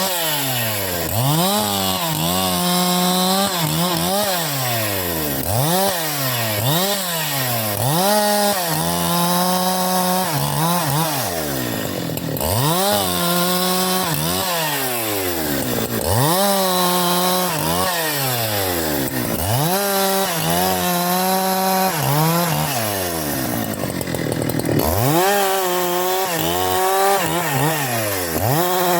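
Husqvarna 372 XP two-stroke chainsaw running loud, its engine pitch rising and falling over and over, about every one to two seconds, as the throttle is worked up and down.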